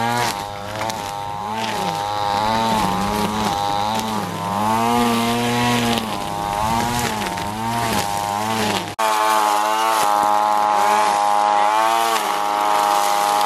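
Petrol string trimmer cutting long grass, its engine revving up and down about every half second to a second. In the last few seconds it holds a steadier high speed.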